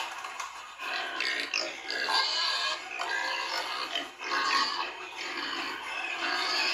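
A group of young piglets grunting and squealing, their calls overlapping in a continuous chatter that swells and dips.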